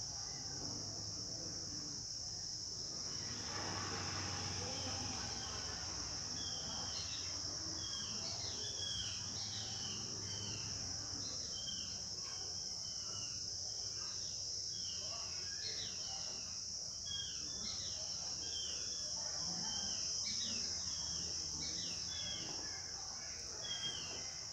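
Crickets chirring in a steady high-pitched drone, with a bird giving short chirps over and over from about seven seconds in until near the end.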